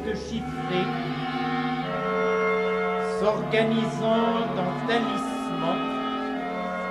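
Modern orchestral music: several long held notes overlap and shift in pitch every second or two, with short sharp accents about three and five seconds in.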